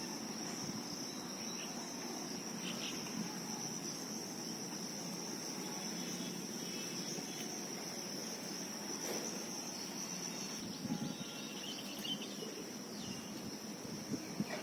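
Steady high-pitched drone of insects, unbroken throughout, with a few brief bird chirps now and then, mostly in the second half.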